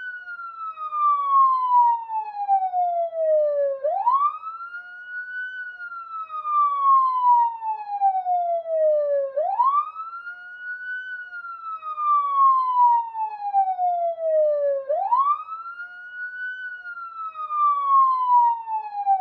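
Police siren wailing: each cycle rises quickly in pitch, then falls slowly, repeating about every five and a half seconds.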